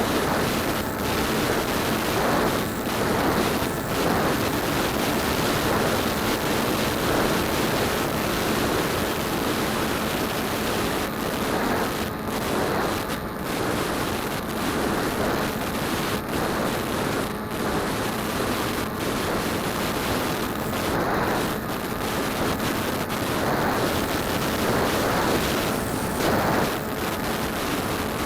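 DJI Phantom quadcopter's motors and propellers running in flight, heard from a keychain camera mounted on the drone: a steady rush with a faint hum, mixed with wind blowing across the microphone.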